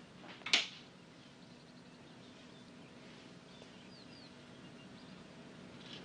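A single sharp knock about half a second in. Then a low steady background hum, with a few faint bird chirps near the middle.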